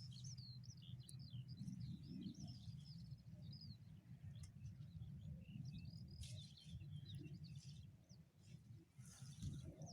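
Small birds chirping and twittering in quick, high, repeated calls, busiest in the first few seconds and again about six seconds in, over a faint low rumble.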